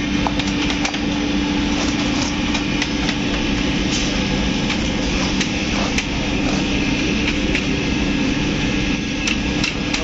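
Steady machinery hum with a constant low tone, like an engine or motor running, with a few scattered sharp clicks and ticks over it.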